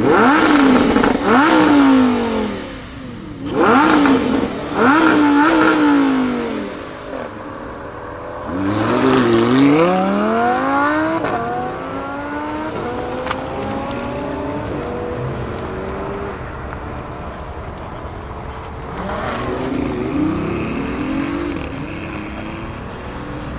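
Supercar engines revving hard in quick blips, twice in the first six seconds. Then a car accelerates away with its pitch climbing through gear changes and fading, and another rev comes near the end.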